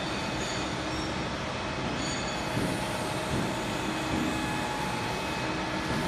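Steady mechanical noise filling a factory hall: an even hiss and rumble with faint thin whining tones over it, and a couple of slight knocks about halfway through.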